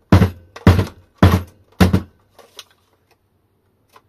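An e-bike battery pack's case knocked or jolted against the workbench: four heavy thunks about half a second apart, then a lighter one and a faint last knock near the end. It is being worked to free the cell pack, which seems stuck to the bottom of the case, possibly by silicone.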